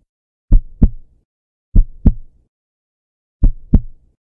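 Heartbeat sound effect: three double thumps, each pair a quick lub-dub, with about a second and a half between pairs.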